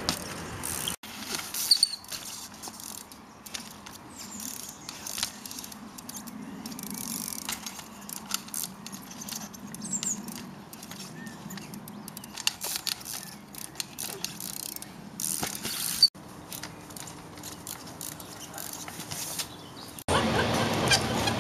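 Trials bike being hopped and balanced on benches and stone, with sharp knocks of tyres and frame landing, freewheel ratchet clicks and a few short squeaks from the brakes and tyres. The knocks come irregularly, with the loudest about two seconds in and near sixteen seconds.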